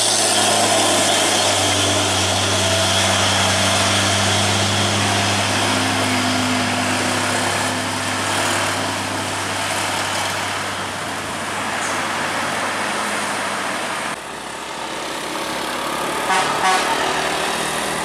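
Heavy diesel truck engine pulling hard up a steep grade, a steady low drone. After a cut, quieter traffic passes with a short run of horn toots.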